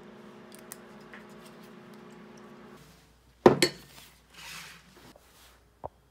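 Glass whisky bottle set down on a tabletop with one sharp clink about three and a half seconds in, followed by a short rustle and a light tick near the end. A faint steady hum stops just before the clink.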